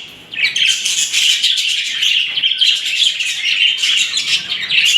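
A flock of caged budgerigars chattering, many birds chirping and warbling over one another in a dense, continuous twitter.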